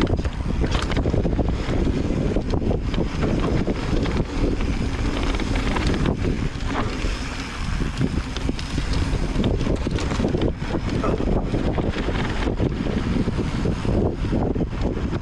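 Wind buffeting the microphone of a riding camera, mixed with the rattle and knocks of a mountain bike running over a rough, rocky trail.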